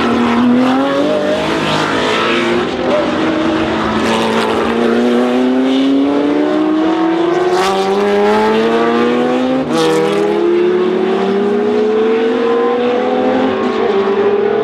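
Historic sports-prototype racing engine accelerating hard, its revs climbing in a long rise, dropping sharply at a gear change about two-thirds of the way through with a crack from the exhaust, then climbing again.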